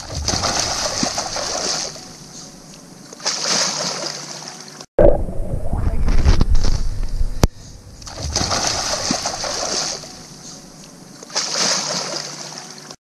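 Pool water splashing and sloshing against a waterproof action camera held at the surface as a person wades through it. It comes in loud spells with quieter stretches between, and breaks off abruptly once, about five seconds in.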